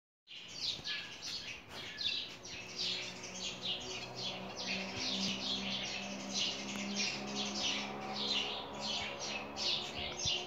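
Small birds chirping busily: a dense, unbroken run of short, quick downward chirps, several a second, over a low steady hum.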